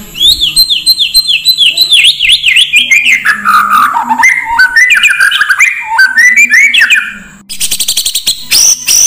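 Oriental magpie-robin (kacer) singing: a fast run of repeated down-slurred whistles that steps steadily lower in pitch, then rising phrases, breaking about seven and a half seconds in into a rapid stuttering trill of high notes.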